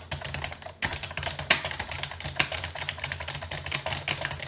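Rapid typing on a computer keyboard: a dense, fast stream of key clicks over a low hum.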